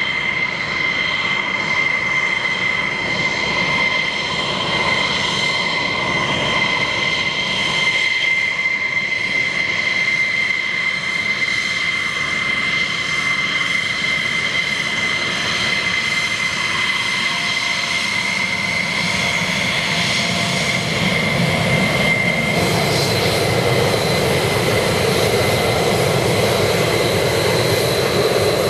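F-16C Block 52 Fighting Falcon's turbofan running at taxi power: a steady high whine over a rushing roar. About two-thirds of the way through the sound shifts, the whine stepping higher and the lower roar growing louder.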